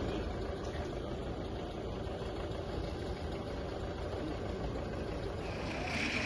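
Steady low rumble of outdoor street noise, with no distinct events standing out.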